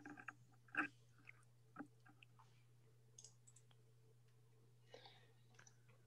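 Near silence with a low steady hum and a handful of faint, irregular clicks, the loudest just under a second in.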